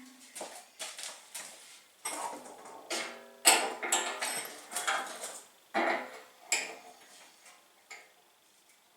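Metal parts or tools being handled and set down: a series of sharp clanks and clinks, some with short ringing, the loudest about three and a half seconds in.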